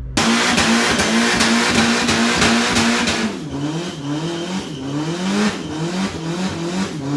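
Car engine held at steady high revs for about three seconds, then revved up and dropped back again and again, about five times in quick succession.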